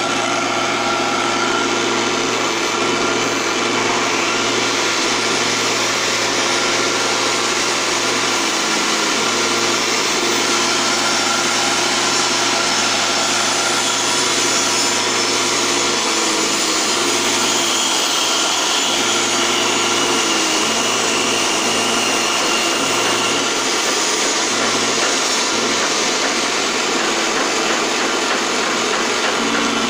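Mini wood lathe motor running steadily at speed, spinning a wooden blank, a constant whine over a hiss.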